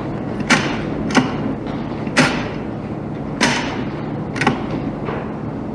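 Rotary-dial telephone being dialled: about five sharp clicks at uneven intervals, over a steady low hum.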